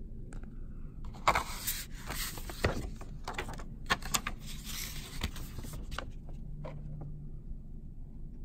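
Cardboard gift boxes being handled and slid about: rustling and scraping with several sharp knocks, from about a second in until about six seconds in.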